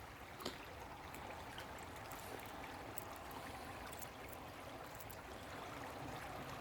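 Faint, steady rush of flowing river water, with a sharp small click about half a second in.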